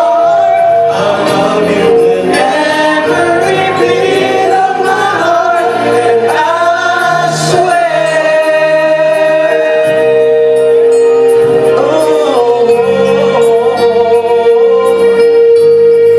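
A male singer sings a slow pop ballad into a microphone over long sustained backing chords.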